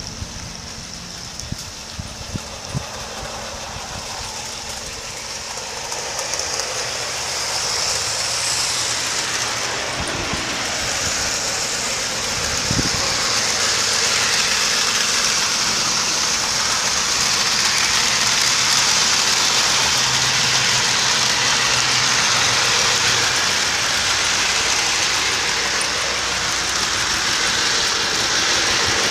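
Steady mechanical running noise of the garden railway's moving models, with a strong hiss, heard from a camera riding on a circling model plane. It swells louder over the first several seconds and then holds steady.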